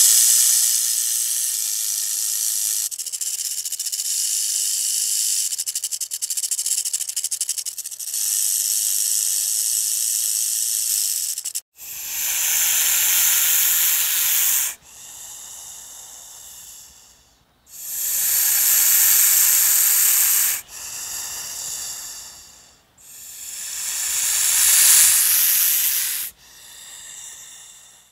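Snake hissing sound effect: a steady high hiss for about twelve seconds, then six separate hisses of two to three seconds each, alternating louder and softer.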